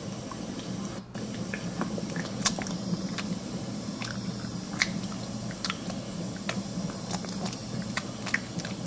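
Cats licking each other's fur close to the microphone: wet, irregular licking clicks of tongue on fur.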